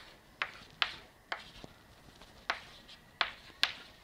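Chalk tapping and stroking on a blackboard as a formula is written: a string of short, sharp clicks at an uneven pace, about six in four seconds.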